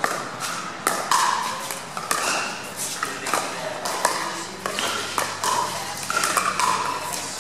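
Pickleball paddles striking the hollow plastic ball during a doubles rally: a string of sharp pops, about one every half second to a second, over crowd chatter.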